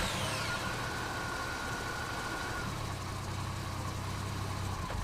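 Truck engine idling steadily with a low hum, and a faint high whine that stops about two and a half seconds in.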